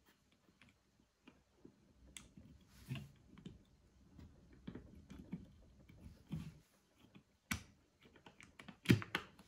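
Light plastic clicks and taps as a curling iron's plastic housing is handled and its top cover is pressed back into place, with a few sharper knocks scattered through.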